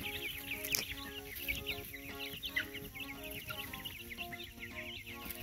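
A flock of young Freedom Ranger chickens peeping in quick, short, falling chirps, many overlapping. Soft background music with held notes plays underneath.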